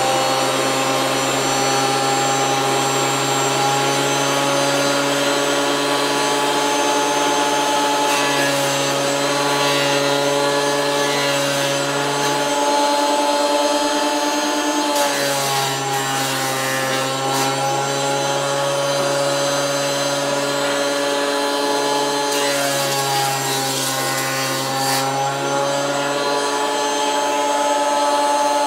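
Benchtop jointer-planer combination machine running with a steady motor whine while a pine board is fed across the jointer cutterhead at a 1 mm cut. Three cutting passes of a few seconds each add a hiss of planed wood, and the motor pitch dips slightly under the load of each.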